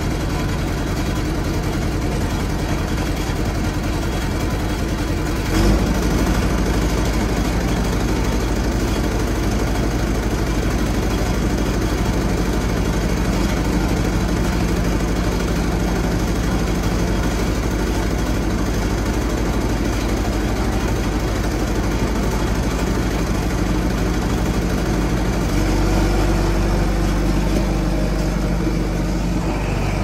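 John Deere 410E backhoe loader's diesel engine idling steadily, with a short sharp knock about six seconds in and a change in the engine note a few seconds before the end.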